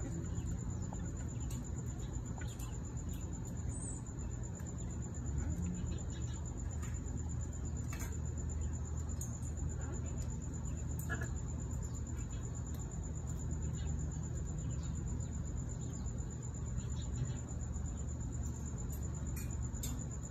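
A steady, evenly pulsing high-pitched insect trill runs throughout over a low steady rumble, with a few light clicks scattered through it.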